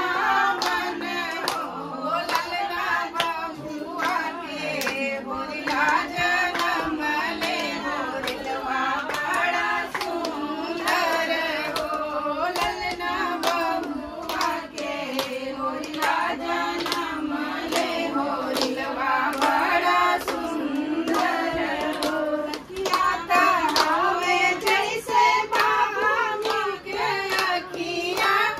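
Women singing a devotional song in high voices, accompanied by steady, rhythmic hand-clapping in time with the song.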